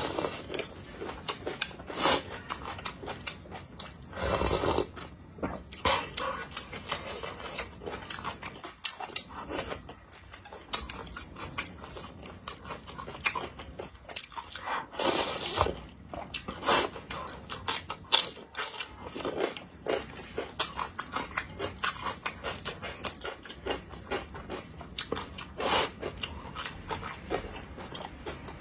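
Close-up eating sounds: a person chewing and slurping rice noodles in spicy broth, with many short wet mouth clicks and longer slurps about four seconds in and again about fifteen seconds in.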